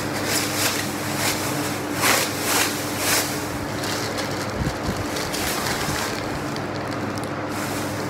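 Thin plastic produce bag crinkling and rustling in short bursts as a packaged grocery item is handled and lifted out, with a soft bump a little past halfway. A steady hiss and hum runs underneath.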